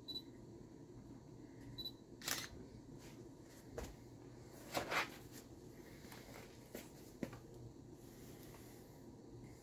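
Spoon clicking and scraping against a plastic bowl and silicone muffin mould while scooping sticky marshmallow Rice Krispie mixture: a handful of short light clicks over faint steady room noise, the loudest about five seconds in.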